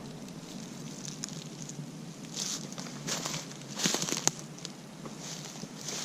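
Dry leaf litter rustling and crackling in irregular bursts, with a few sharp clicks among them.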